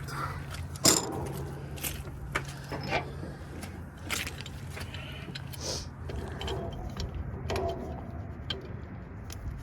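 Metal parts and tools clinking and knocking, with a sharp clank about a second in and scattered lighter taps after it, over a steady low engine hum.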